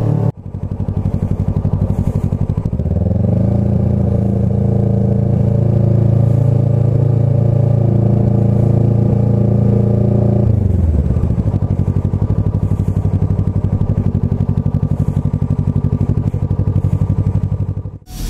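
Kawasaki ER-6f (Ninja 650) parallel-twin engine heard from on the bike while riding. Its pitch rises about three seconds in, holds steady, then drops back about ten seconds in as the bike slows, and the sound fades out just before the end.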